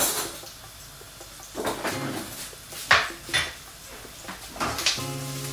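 Scattered clinks and knocks of pans and utensils, several sharp ones spread a second or so apart. Near the end a low steady hum starts suddenly.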